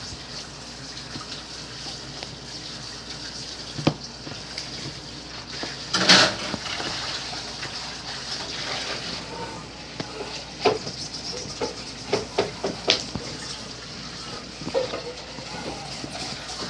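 Water running steadily into a sink or basin, with a few short knocks and splashes.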